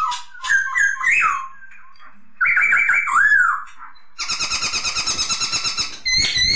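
Poksay Hongkong laughingthrush singing: clear whistled notes that rise and fall, then about four seconds in a fast chattering run of evenly repeated notes lasting about two seconds, followed by sharp calls near the end.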